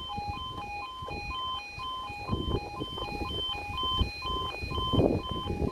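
Level crossing alarm sounding its two-tone yodel, a high and a low tone alternating about twice a second, as the barriers come down to warn of an approaching train. A low rumbling noise runs underneath and swells twice.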